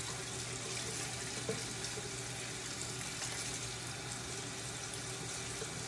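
Kitchen tap running steadily, cold water splashing over a hand being rinsed under it.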